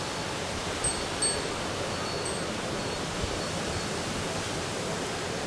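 Steady rain falling in a thunderstorm, an even hiss, with a few brief high tinkling notes about a second in.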